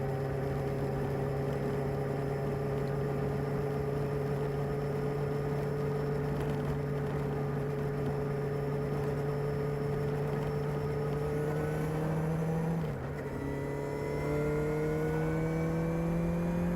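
Kawasaki ZR-7S motorcycle's air-cooled inline-four on its stock exhaust, running at steady revs. About two-thirds of the way in the pitch starts climbing slowly; it dips briefly near the end, then climbs again.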